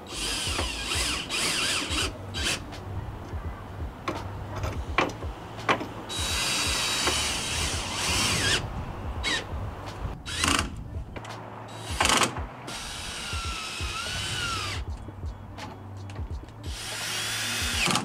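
Power drill running in several separate bursts, its motor whine rising and falling in pitch, tightening the mounting bolts of a truck bed rack, with sharp clicks between the bursts.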